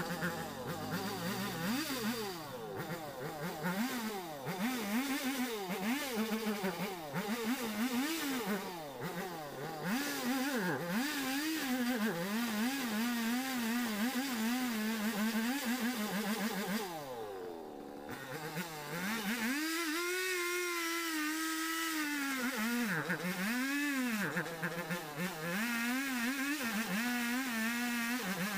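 Two-stroke petrol chainsaw cutting through the branches of a felled tree, its throttle opened and eased off again and again so the engine pitch rises and dips about once a second. About two-thirds through it falls briefly to idle, then is held at steady high revs for a few seconds before the rising and dipping resumes.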